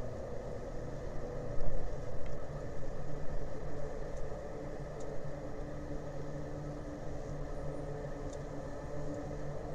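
Steady low engine drone with a constant hum in it and a few faint ticks, with a stretch of louder, uneven rumbling between about one and a half and four seconds in.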